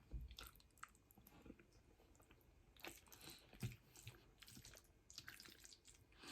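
Faint close-up chewing: soft wet mouth clicks and small crunches at irregular intervals.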